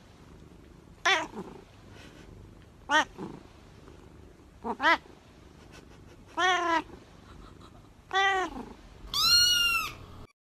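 A domestic cat meowing repeatedly: about seven short meows a second or two apart, the last one higher-pitched and longer.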